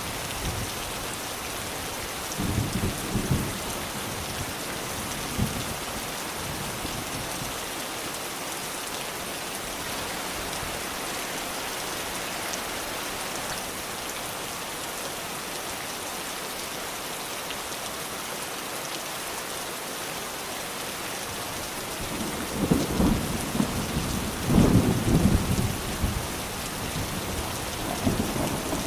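Steady rain falling with a constant hiss, broken by low rolls of thunder: a short one a few seconds in and a longer, louder rumble near the end.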